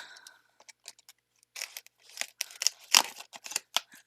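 Shipping packaging being handled and pulled open: a run of irregular crinkling and crackling clicks, with one sharp snap about three seconds in.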